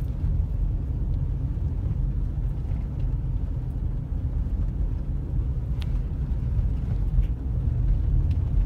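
Steady low rumble of a car's engine and tyres, heard from inside the cabin while driving at low speed, with a couple of faint clicks in the second half.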